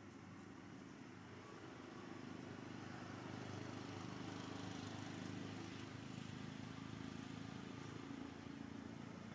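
Faint low rumble of a distant engine, swelling a little in the middle and easing again.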